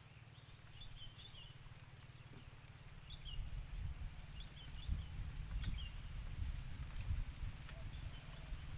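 Small wild birds chirping in short, repeated calls over a steady high-pitched whine. From about three seconds in, low rumbling and irregular knocks close to the microphone grow louder than the birds.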